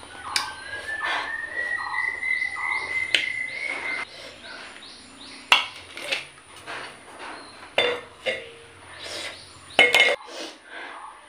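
Sharp clinks and clicks of a plate and grapes being handled while eating, the loudest about five and a half seconds in and near ten seconds. Behind them, short chirps repeat evenly, and a thin whistle rises slowly over the first four seconds.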